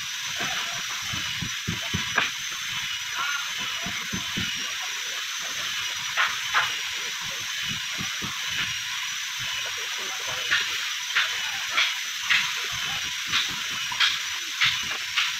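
Irregular sharp knocks of work on a wooden boat hull under construction, a few early and coming more often in the second half, over a steady high hiss.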